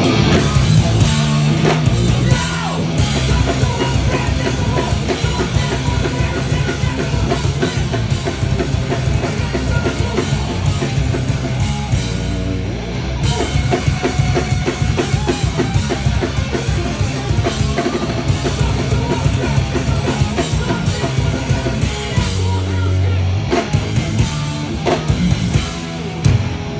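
Live hardcore band playing loud and fast, with pounding drum kit and bass drum under distorted guitars, kicking in suddenly at the start and driving on without a break.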